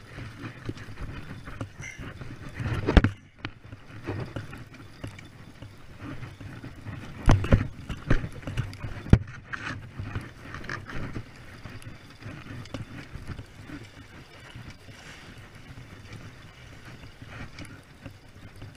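Spinning reel being wound in on a sea-fishing rod, under a steady low rumble, with a few sharp knocks close to the microphone about 3, 7.5 and 9 seconds in.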